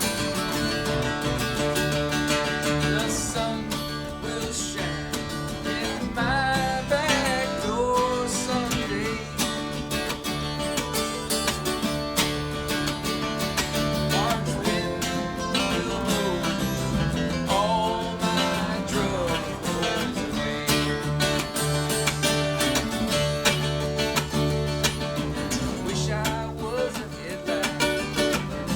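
Acoustic string band with guitars, mandolin, dobro and banjo playing an instrumental bluegrass-style jam: strummed acoustic guitar chords under a lead line with bending, sliding notes.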